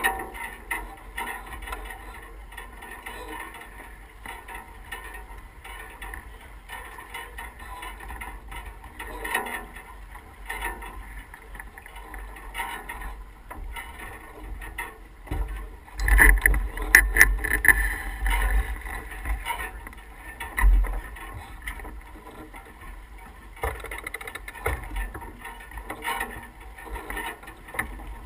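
Wind buffeting the microphone and water rushing along the hull of an S2 9.1 sailboat under sail, a steady low rumble with noise over it. It grows much louder for a few seconds a little past the middle.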